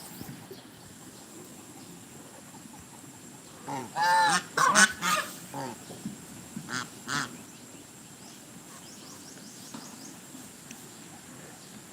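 Domestic geese honking: a quick run of short calls about four seconds in, then two more a little later.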